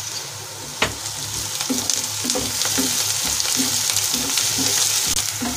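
Chopped onions sizzling in hot oil in a kadhai while a wooden spatula stirs and scrapes through them. One sharp tap about a second in, then a steady run of stirring strokes, about three a second.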